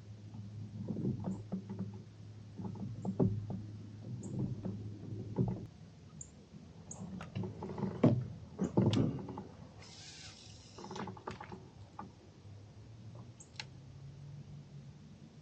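Irregular knocks and clunks in a kayak, such as gear or a paddle striking the hull, with a brief hiss about ten seconds in, over a low steady hum.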